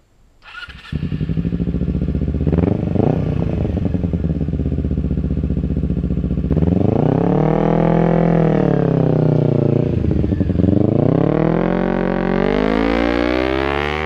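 Kawasaki Ninja 250R parallel-twin engine through a Leo Vince GP Corsa slip-on exhaust. The engine runs loud, coming in about half a second in. Its pitch climbs steadily from around six and a half seconds, dips briefly near ten seconds, then climbs again as it accelerates.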